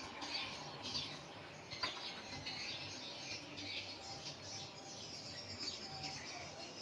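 Small birds chirping: many short, high, irregular calls, with a faint sharp click about two seconds in.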